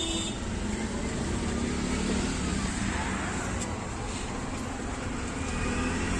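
Steady road traffic noise: an even rumble of passing vehicles with no distinct events.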